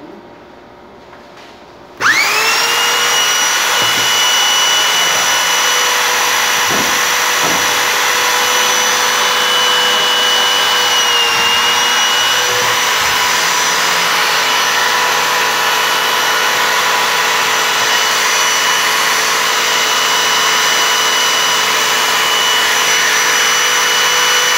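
Corded electric drill mounted in a drill-press stand switched on about two seconds in, spinning up quickly to a steady high whine and running on. Its pitch dips briefly a little before halfway, then recovers.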